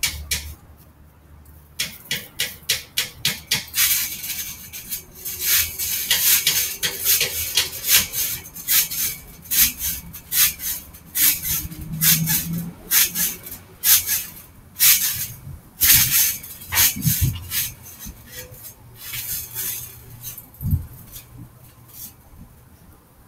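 Trampoline in use: a dense, irregular run of creaks, clicks and rattles from the springs and mat, with a few dull thumps in the second half.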